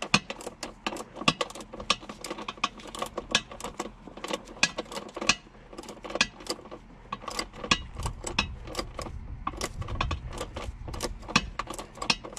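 Socket ratchet clicking in quick, uneven runs as it backs out the nuts holding the porcelain bowl to the plastic base of a Thetford Style II RV toilet; the nuts come out slowly because they are threaded into plastic.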